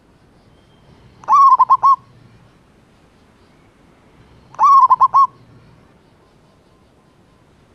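Male zebra dove (perkutut) cooing twice, about three seconds apart, each phrase a quick run of about five clipped notes: a male calling to a female.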